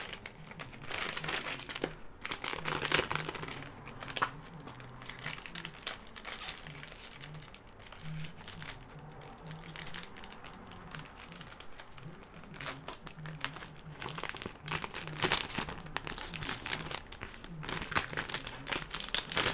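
Packaging bag crinkling and rustling in bursts as stationery cards are handled and pushed back into it.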